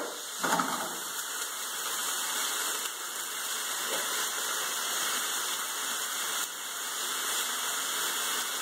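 Chicken breast pieces sizzling steadily in a non-stick frying pan, with a brief light knock about half a second in.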